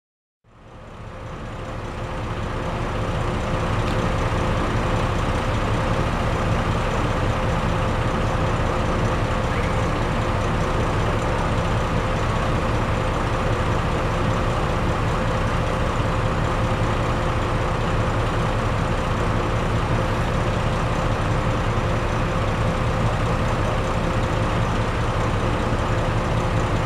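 Diesel locomotive engine running steadily: a low rumble with a steady whine over it, fading in over the first couple of seconds.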